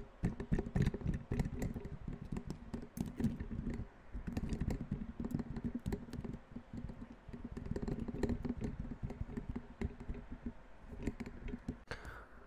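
Rapid, irregular tapping, near-continuous with a few brief lulls.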